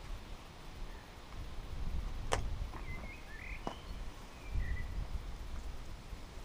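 Outdoor ambience: an uneven low rumble of wind buffeting the microphone, with a few short bird chirps and two sharp clicks.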